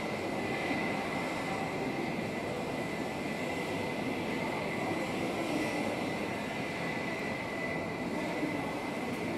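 Steady railway-station background noise, rail and machinery sound with a thin constant high whine throughout.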